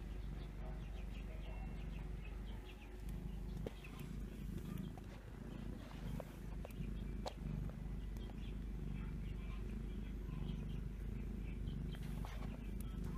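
Mother cat purring steadily while her newborn kittens suckle, the purr swelling and fading in a regular in-and-out rhythm, with a few soft clicks.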